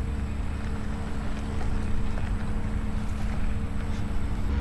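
A steady mechanical drone from a running motor, holding an even pitch with a low rumble underneath.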